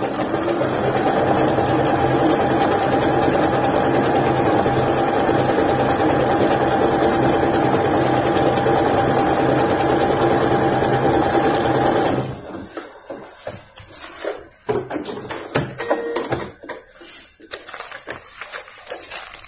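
A Usha Janome Dream Maker 120 computerized sewing machine runs steadily, stitching a mirrored decorative pattern after its flip button has been pressed. It stops abruptly about twelve seconds in, followed by scattered light clicks and rustles of the fabric being handled.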